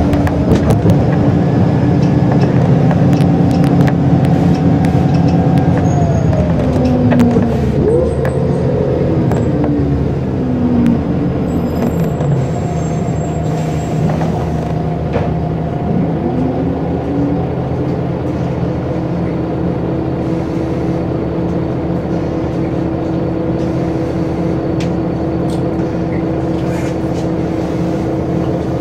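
Scania L94UB bus's diesel engine and ZF automatic gearbox heard from on board as the bus slows. The engine and gearbox whine fall in pitch, then the engine idles steadily while the bus stands still.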